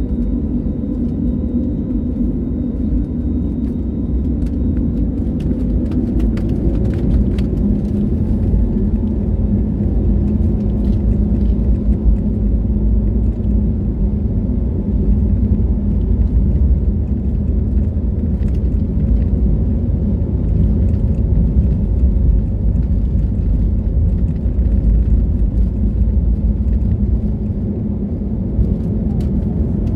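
Airbus A320neo on its takeoff roll, heard from inside the cabin over the wing: the turbofan engines at takeoff thrust and the wheels rumbling along the runway, making a steady, loud, low rumble. A few sharp clicks come about six to eight seconds in.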